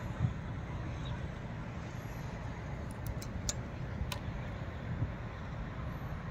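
Traxxas TRX-4 Defender RC crawler working its way down dry, cracked clay: a low rumble of wind on the microphone with a few sharp clicks and knocks from the tyres on the clods, bunched about three to four seconds in.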